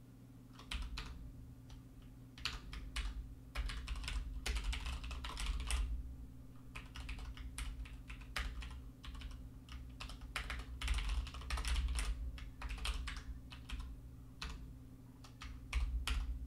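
Typing on a computer keyboard: irregular flurries of key clicks with short pauses between them, over a low steady hum.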